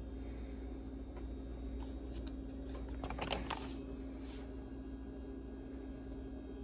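Paper rustling briefly as a page of an instruction booklet is handled and turned, loudest about three seconds in, over a steady low background hum.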